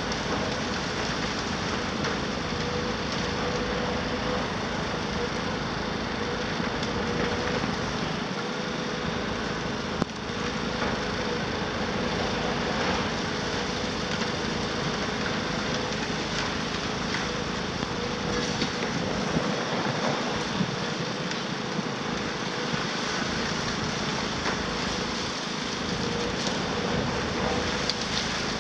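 Cat 374F UHD high-reach demolition excavator working with its crusher: a steady engine and hydraulic drone with a held whine, over scattered cracks and clatter of concrete being crushed and falling.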